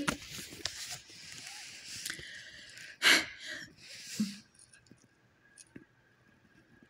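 A paper book page being turned, a soft rustle, then about three seconds in a short, loud intake of breath. After that only a few faint clicks.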